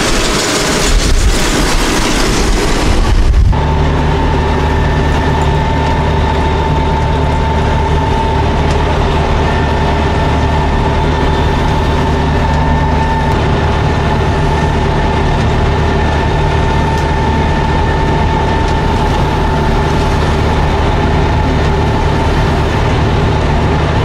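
For the first few seconds, a JD 535 round baler and its tractor passing close by at ground level, a noisy rush of machinery. Then, from inside the cab, a John Deere tractor engine running steadily while it pulls the baler, a steady drone with a steady whine above it.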